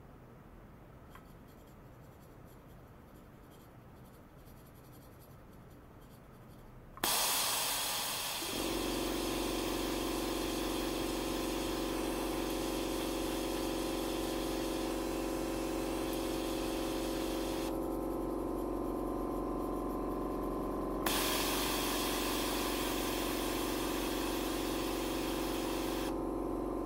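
Stainless steel pipe driven by combined audio-frequency and ultrasonic excitation, giving off a steady hum: several low tones under a hiss. The hiss switches on abruptly about seven seconds in, and the low tones join a second and a half later. The hiss drops out for about three seconds around eighteen seconds in, then returns.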